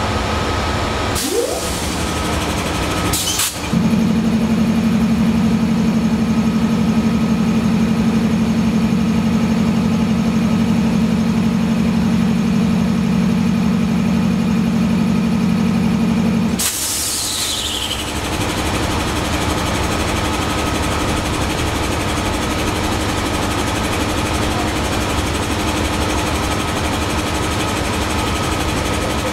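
Air compressor of an Amtrak GE P42DC diesel locomotive cycling over the steady running of the locomotive. After two short bursts of air the compressor loads about three and a half seconds in with a loud steady drone. It cuts out about thirteen seconds later with a sharp hiss of released air and a falling whistle as it unloads.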